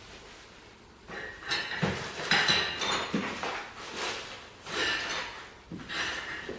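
Steel wrenches clinking and clattering against each other as they are handled, in several bursts with a short metallic ring, starting about a second in.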